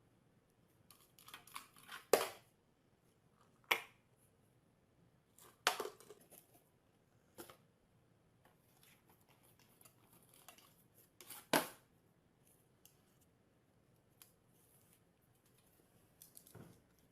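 A handful of short, sharp clicks or snaps at irregular intervals, with faint rustling between them.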